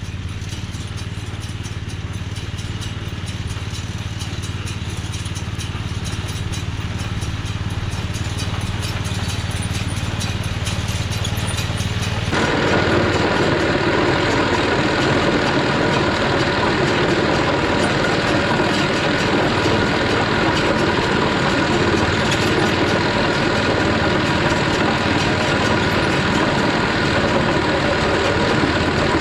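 A tractor engine running steadily. About twelve seconds in, the sound changes abruptly to a louder, busier running with more clatter.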